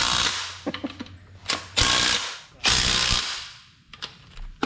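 Cordless power driver running bolts into the side of a race engine block in short bursts: three main runs, with a few brief clicks between them.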